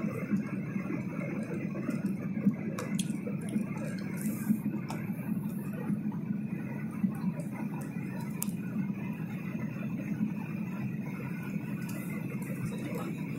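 Steady low drone inside a jet airliner's cabin during descent, the engine and airflow noise heard at a window seat, with a few faint clicks.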